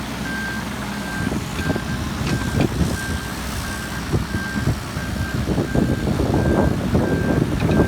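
Wacker Neuson EZ28 mini excavator's travel alarm beeping steadily, a little under two beeps a second, over its Yanmar 1.267 L diesel engine running. Clanks and rattles from the machine grow louder in the second half.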